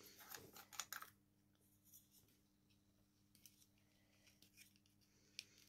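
Faint clicking and crinkling of fingernails picking at the seal of a small plastic lip-scrub jar, mostly in the first second, then near silence with a few light ticks.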